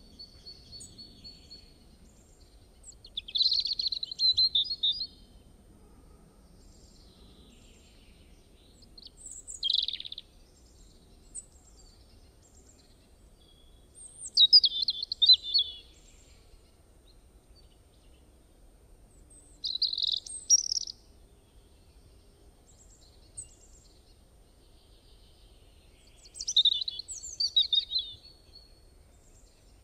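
A songbird singing: five short, high chirping phrases, one roughly every five to six seconds, over a faint low hum.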